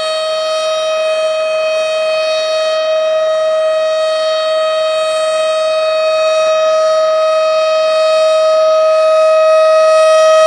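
Tornado warning siren sounding one steady, unwavering tone rich in overtones, slowly growing louder.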